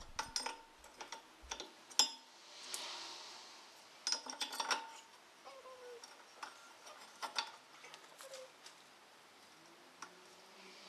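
Scattered light clicks and taps, irregular and quiet, with a soft swell of hiss about three seconds in.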